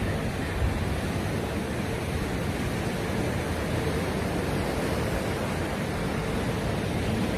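Steady, even rushing noise with no distinct events, the sound of wind and sea at the shoreline.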